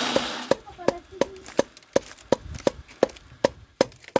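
Knife chopping steadily on a wooden board, about three even strokes a second, mincing filling for momos.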